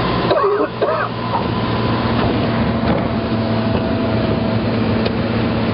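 Light propeller aircraft's piston engine and propeller droning steadily, heard from inside the cabin in flight.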